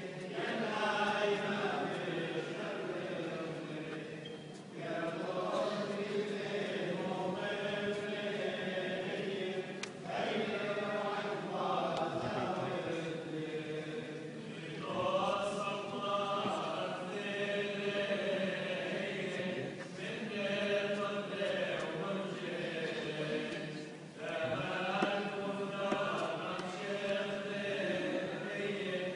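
Liturgical chant sung in long, melismatic phrases of a few seconds each, with short breaths between them.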